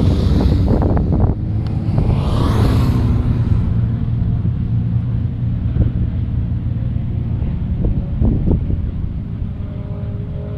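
Motorcycle engines running, a steady low drone that slowly fades, with a brief rushing hiss about two seconds in and a few short knocks later.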